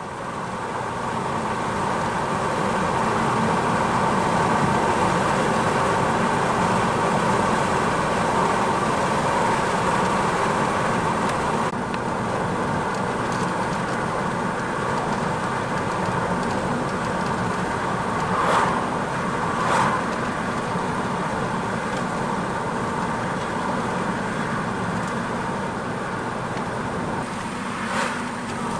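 Car driving along a road: steady engine and tyre noise, with a few brief clicks or knocks about two-thirds of the way in and near the end.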